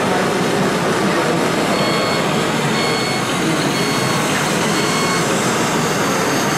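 Radio-controlled model tractors, among them a Claas Xerion with a front blade, running on a dusty dirt track: a loud, steady, dense noise. In the middle come four short high beeps about a second apart, like a reversing alarm.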